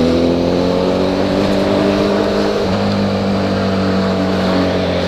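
Honda CB1000 inline-four with a 4-into-1 exhaust, heard from the saddle while riding under steady throttle; its engine note climbs slowly, then shifts slightly lower about halfway through.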